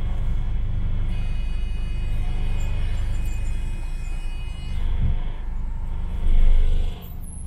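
London bus heard from inside while riding, with a steady low rumble of engine and road. A thin high whine runs through the first half, and the sound swells louder briefly near the end.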